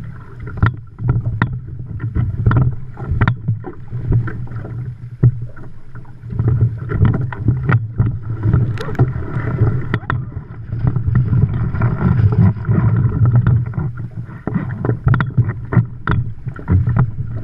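Hobie Adventure Island sailing kayak running fast through open-ocean chop: a steady low rumble of water rushing past the hull, broken by frequent sharp, irregular slaps as waves and spray hit the boat.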